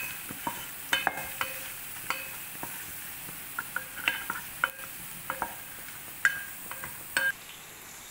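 Chicken sausage and kebab pieces sizzling in hot oil in a deep pot, frying on a low flame. A wooden spatula stirs them and knocks and scrapes against the pot in irregular, short clinks.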